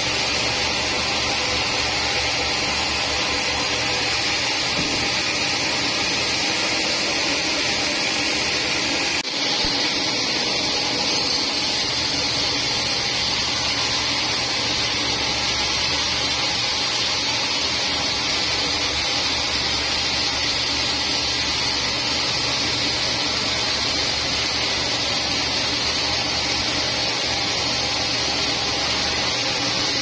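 Vertical band sawmill running and sawing through a teak log: a steady, even noise of motor and blade, with a hum underneath.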